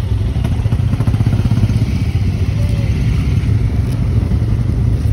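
Motorcycle engine running steadily at idle, not revved.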